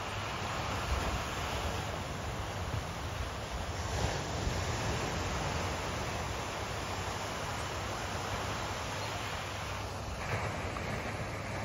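Ocean surf washing steadily onto a sandy beach, with the low rumble of wind buffeting the microphone.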